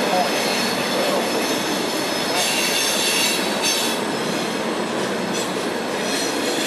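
CSX Q740 freight train of Tropicana refrigerated boxcars rolling past at steady speed. The wheels run on the rails with a continuous rumble, and high, steady squealing tones come from the wheels, strongest about two to three seconds in.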